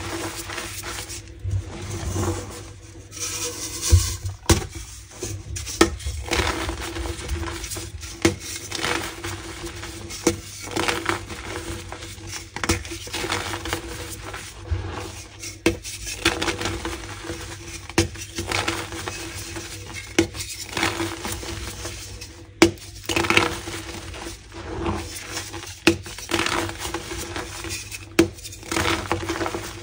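Pink gym chalk blocks being crunched: irregular crisp cracks and crumbling snaps, several to the second in clusters. A faint steady hum runs underneath.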